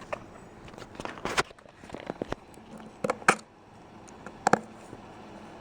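Scattered sharp clicks and knocks of a laptop's case, parts and small tools being handled during reassembly, the loudest a little past three seconds in and again about four and a half seconds in.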